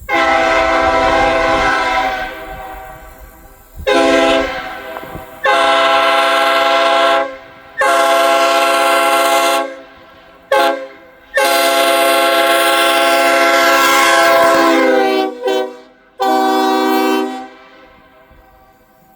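Locomotive air horn sounding about eight blasts, long and short, each a chord of several notes together. The pitch drops during the longest blast, about three-quarters of the way through.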